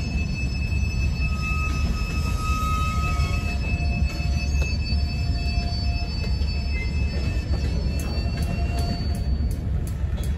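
Loaded tank cars of a freight train rolling slowly past, steel wheels rumbling on the rails with steady high-pitched wheel squeal that comes and goes. A run of light clicks from the trucks and rail sounds near the end.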